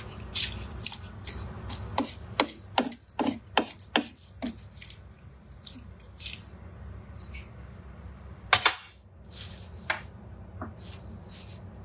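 Wooden spatula stirring a thick bean stew in a Thermomix's stainless steel bowl: scraping, with a quick run of sharp knocks against the bowl and one louder knock later on.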